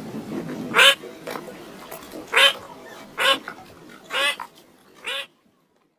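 Five short, harsh animal calls, one about every second, over a faint background murmur; the sound cuts off abruptly shortly before the end.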